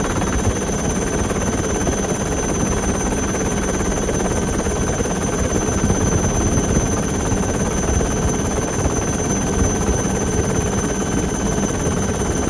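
Chetak helicopter in flight heard from inside the cabin: a steady din of turbine and rotor with a thin, high, steady whine over it.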